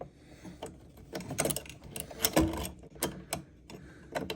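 Irregular clicks and knocks of an electrical wire strain relief being handled and fitted onto a dishwasher's electrical junction box.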